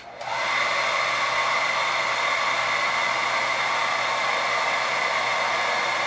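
Hair dryer switched on and running steadily as part of an 18-amp test load, reaching full speed within about half a second.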